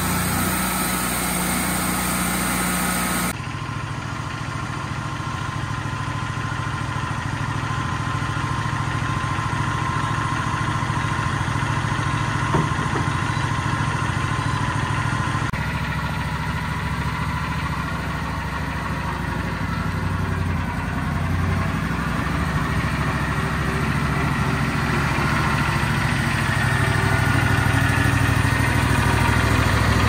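Wood-Mizer LT40 hydraulic portable band sawmill running, its engine humming steadily as the band blade saws through a knotty pine log. The sound changes abruptly a few seconds in and again about halfway through.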